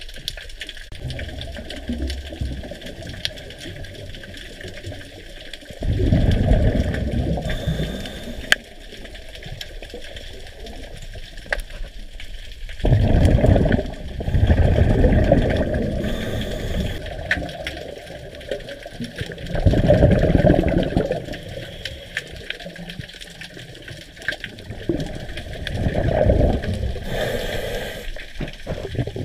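Scuba diver's exhaled breath bubbling out of a regulator and rushing past an underwater camera housing, in four long bursts about six seconds apart, with a quieter wash of water between them.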